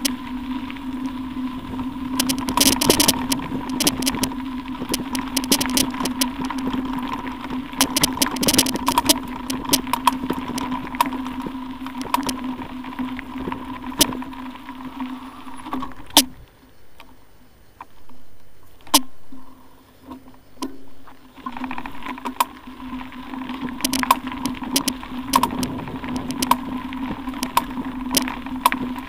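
Bicycle rolling along a loose gravel road: tyres crunching over stones, frequent sharp clicks and rattles, and a steady hum. The hum drops away for about five seconds past the middle, then returns.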